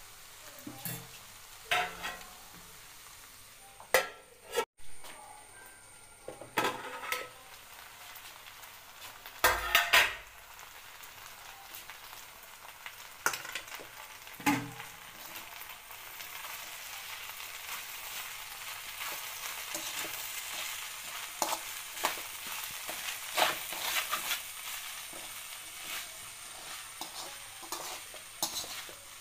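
Sliced ivy gourd stir-frying in a metal kadai: a spatula scrapes and knocks against the pan over a sizzle, with a loud clatter about ten seconds in. The sizzling grows louder in the second half.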